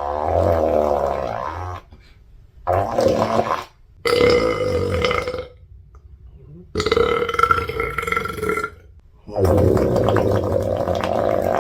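A young woman burping over and over: a run of about five long, drawn-out burps, each lasting one to two and a half seconds, with short pauses between them.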